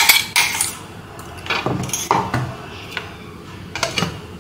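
Kitchen utensils clinking and knocking: a quick cluster of sharp strikes at the start, then a few scattered knocks.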